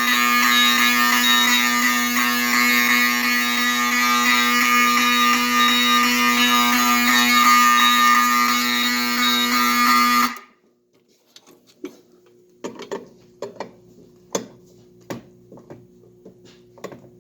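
Fire alarm notification horn sounding a loud, continuous buzzing tone. It cuts off abruptly about ten seconds in as the alarm is reset, followed by a few light clicks and knocks.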